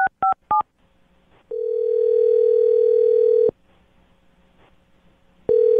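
The last three touch-tone keypresses of a phone number being dialled, each a short two-note beep, then the ringback tone of the call ringing through: a steady tone about two seconds long, a pause of about two seconds, and the next ring starting just before the end.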